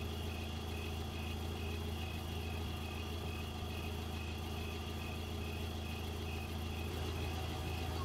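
Car engine idling steadily, a low even hum with no revving.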